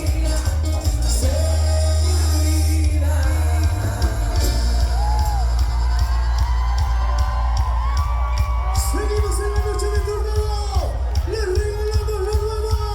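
Live Latin band music with a strong bass line: a held chord for the first few seconds, then a singer comes in over the band, with shouts and whoops.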